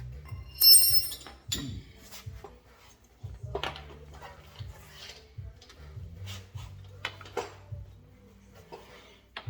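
Metal hand tools and brake parts clinking and rattling while a brake caliper is being unbolted, with one loud ringing metal clink about a second in, followed by scattered lighter clicks and knocks.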